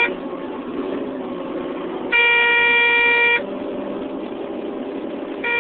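Truck horn on a Caterpillar D250 rock truck sounding in steady, single-pitched blasts a little over a second long: the tail of one right at the start, a full blast about two seconds in, and another starting near the end, over a steady running noise.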